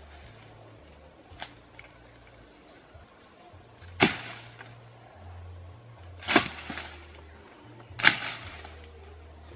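Three sharp whacks about two seconds apart, with a lighter tap about one and a half seconds in: a hand tool striking into jungle undergrowth.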